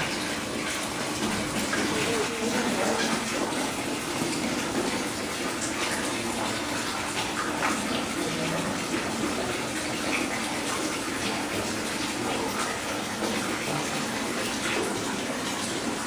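Steady rush and splash of running water.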